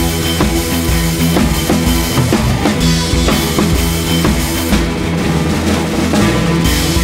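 Background music with a drum kit keeping a steady beat over sustained instrument tones.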